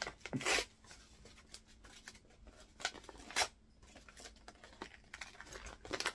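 Paper envelope being torn open and rustled by hand: several short rips, the loudest about half a second in, with two more around three seconds in and another near the end.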